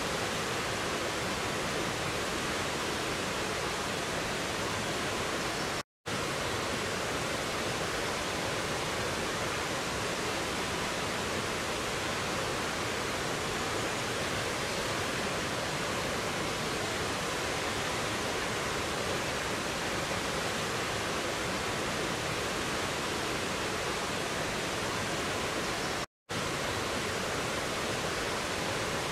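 Mountain stream rushing and splashing over boulders in small cascades, a steady dense water noise. It cuts out to silence for a split second twice, about six seconds in and near the end.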